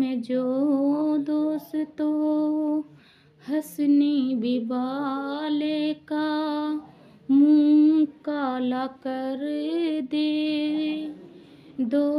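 A woman's voice singing a slow, plaintive melody in short held phrases, with brief pauses about three and seven seconds in.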